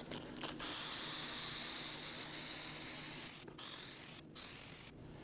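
Aerosol can of spray adhesive hissing as glue is sprayed for the headliner fabric: one long spray of about three seconds, then two short ones, stopping shortly before the end.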